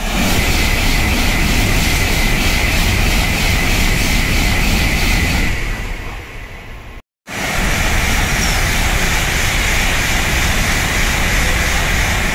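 N700-series Tokaido Shinkansen Nozomi trains passing straight through a station at full speed: a loud rush of air and wheel noise. The first train fades away after about six seconds, there is an abrupt break, and a second train rushes past just as loudly.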